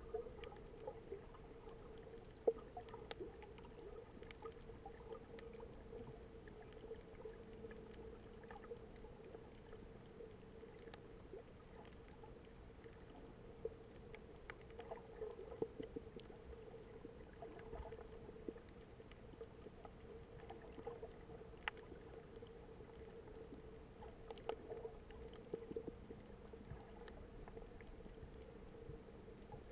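Faint, muffled underwater sound through a submerged camera: a steady low hum with scattered short clicks and crackles.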